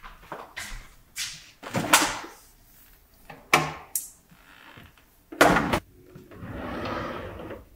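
Refrigerator door opened, with jars and bottles knocking and clinking as they are handled on its door shelf. Near the end comes a steadier rushing sound lasting over a second as a kitchen drawer is opened.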